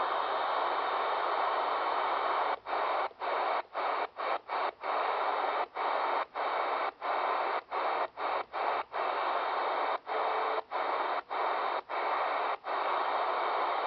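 Receiver static hiss from a President Grant CB/amateur transceiver tuned to an empty channel. From about two and a half seconds in, the hiss cuts out briefly about twenty times at uneven spacing.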